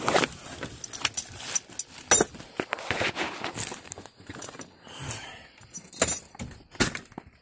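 Irregular metallic clinks and rattles with some rustling, as car parts and tools are handled and moved about.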